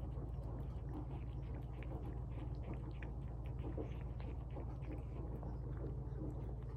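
Cat eating wet tuna from a bowl: many quick, irregular, wet chewing clicks. A steady low hum runs underneath.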